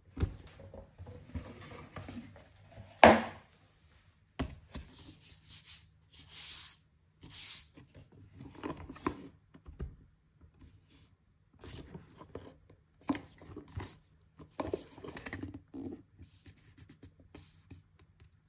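A cardboard pedal box being handled on a table: irregular knocks, taps and rubbing, with two short scraping hisses around the middle as cardboard slides against cardboard or the tabletop.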